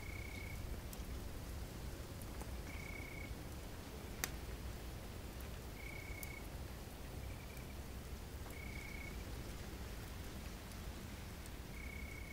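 Night-camping ambience: a campfire crackling with sparse sharp pops, the loudest about four seconds in, over a low steady rumble. A small night creature gives a short, high, even call of about half a second, repeated every two to three seconds.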